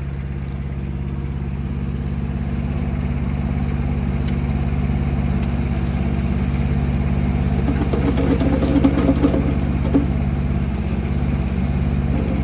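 Digmaster DM200 mini excavator engine running steadily under hydraulic load as the arm works, slowly growing louder. A few knocks and rattles come through about two-thirds of the way in.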